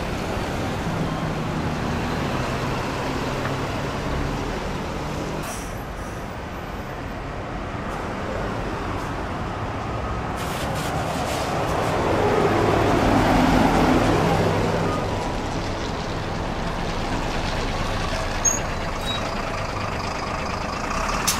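Sotetsu city buses and street traffic: bus engines running at a stop, then one bus moving off and passing close by, its engine noise swelling about halfway through and fading again, with brief air-brake hisses.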